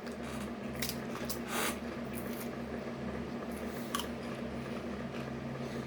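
Pringles potato crisps being bitten and chewed: a few separate short, sharp crunches over a steady low hum.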